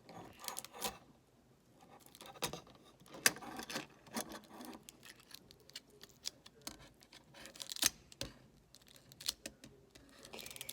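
Scattered light clicks, scrapes and rustles of a camping knife, fork and spoon being handled and freed from plastic packaging, the knife cutting through the packaging.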